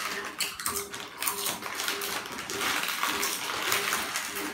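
Foil Lay's potato chip packets crinkling and rustling in irregular bursts as hands dig chips out of them, with chips crunching as they are eaten.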